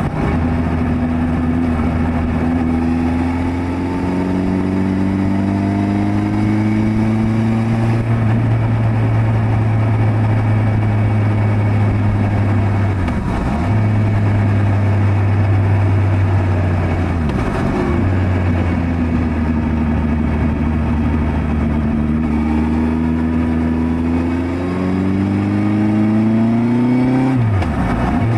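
Suzuki GSX1300R Hayabusa's inline-four engine heard from the bike under way, its note rising steadily as it accelerates, with brief sharp dips about 13 and 18 seconds in and again near the end.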